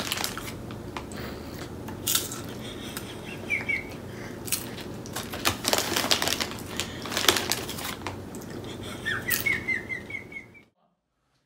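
Crinkly plastic chip bag rustling and crackling as a hand rummages in it, with a few short high squeaks near the end.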